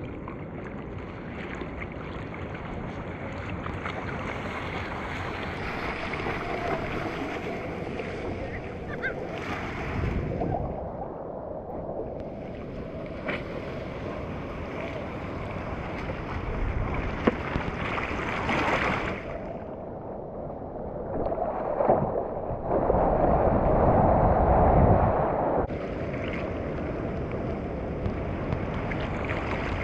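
Seawater sloshing and splashing close to a helmet-mounted GoPro's microphone, with wind noise on the microphone. The highs drop away a few times, muffling the sound, and a louder rush of water comes about three-quarters of the way through.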